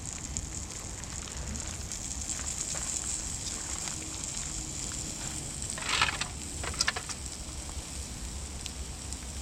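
Wood campfire crackling steadily with scattered small pops. A short louder rustle comes about six seconds in, followed by a few sharp snaps.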